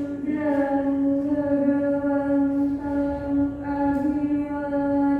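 A woman chanting Buddhist paritta, reciting in a near-monotone on one steady pitch.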